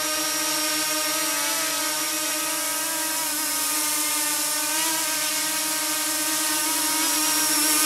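Mini tricopter's three brushless motors and propellers whirring steadily in a hover, a high multi-toned hum whose pitch wavers slightly, growing a little louder near the end.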